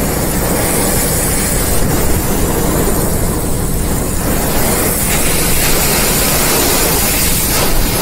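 Heavy rain and strong wind of a severe thunderstorm beating on a car, heard from inside as a loud, steady rush of noise with a deep rumble.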